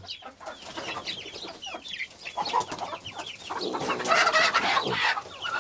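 Flock of Kadaknath and desi chickens clucking, rising near the end to a louder, noisier burst of squawking as one bird is chased and grabbed by hand.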